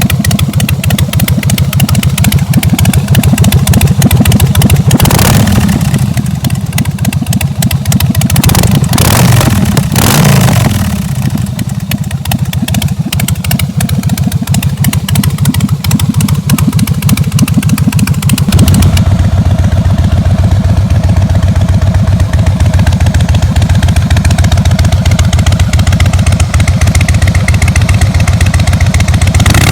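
Harley-Davidson Breakout's V-twin engine running loud through its exhaust: idling with an uneven beat, revved briefly twice in the first third, then settling to a steady idle with a duller tone for the rest.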